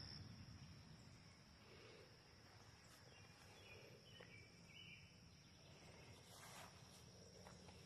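Near silence: faint outdoor ambience with a steady high insect drone and a few faint bird chirps around the middle.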